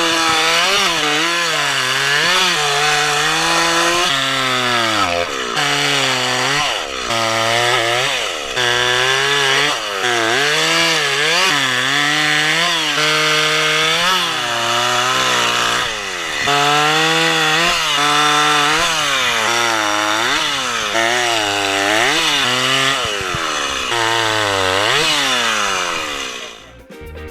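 Chainsaw running in a cut, its engine pitch dipping and rising again and again as the chain loads and frees in the wood; it stops just before the end.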